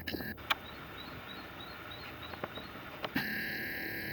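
A bird chirping faintly outdoors: a quick run of about eight short, high, evenly spaced notes, roughly five a second, over a steady background hiss, with a few sharp clicks.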